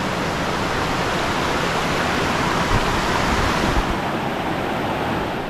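Steady rush of cascading water from a forest stream and waterfall tumbling over rocks, easing slightly near the end.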